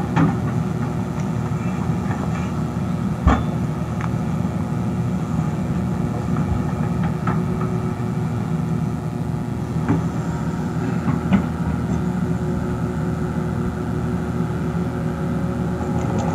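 Excavator's diesel engine running steadily, with a few short knocks, the loudest about three seconds in.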